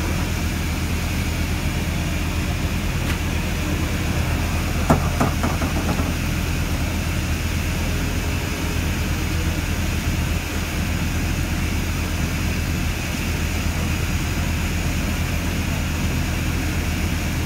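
An engine running steadily with a deep, even drone, with a single short knock about five seconds in.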